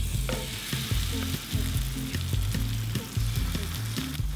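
Seafood and green-onion pancake batter sizzling and frying as spoonfuls drop into hot oil in a frying pan, with background music underneath.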